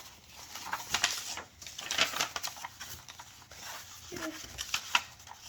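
Sheets of printer paper being folded by hand: crisp rustling and sharp creasing clicks, irregularly spaced, as folds are pressed down.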